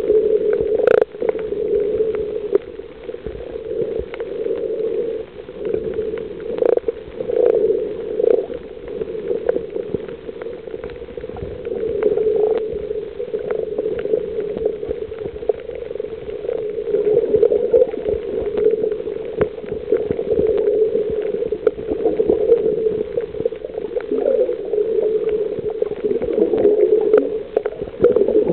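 Muffled underwater sound picked up by a camera held below the surface while snorkeling: a steady watery rush that swells and fades, with scattered short clicks and pops.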